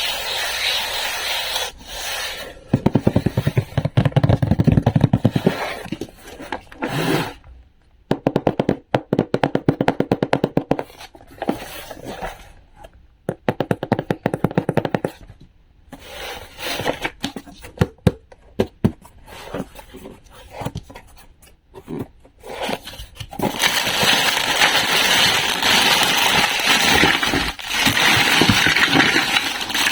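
Close-up handling sounds: several runs of rapid clicks and scraping strokes, then a steady, dense scraping crackle for the last six seconds or so.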